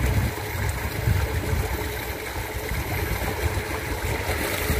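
Water running along a shallow concrete irrigation ditch, an even rushing hiss over a steady low rumble.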